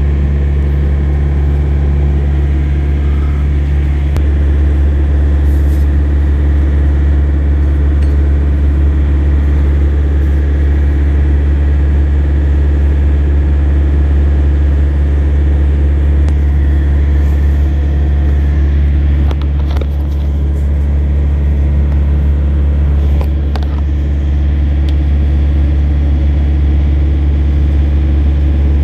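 An engine idling steadily, a deep constant hum that does not change. A few faint clicks come through about two-thirds of the way in.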